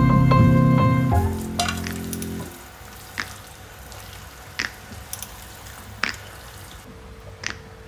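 Background music that ends about two and a half seconds in, then a cream sauce sizzling in a pan while spaghetti is stirred through it with wooden chopsticks. A few light clicks come as the chopsticks knock against the pan.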